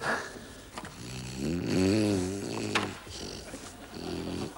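A man's voice making a drawn-out wordless groan that wavers in pitch, with a sharp click about three seconds in and a shorter groan near the end.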